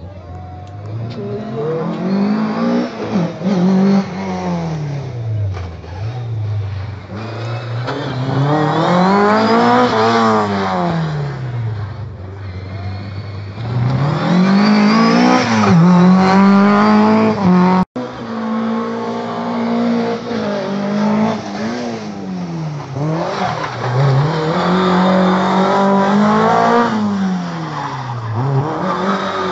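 Rally car engines revving hard past the spectators, one car after another: the pitch climbs through each gear and drops sharply at every shift or lift. The sound cuts out briefly about eighteen seconds in.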